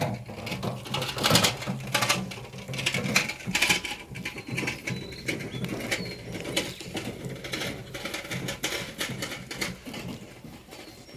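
Irregular pattering and clicking, as of goats moving about and feeding in their pen, with a low cooing for the first few seconds and faint bird chirps.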